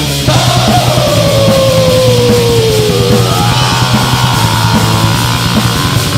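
Heavy metal music: fast, dense drumming and distorted guitars, with a long high note that slides slowly downward from about a quarter second in, followed by another falling high line.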